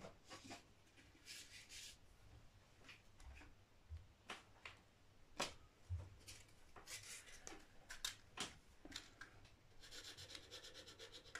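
Faint handling sounds on a guitar neck: scattered light taps and clicks, then quick, even rubbing strokes over the finish near the end as a hand works the repaired area.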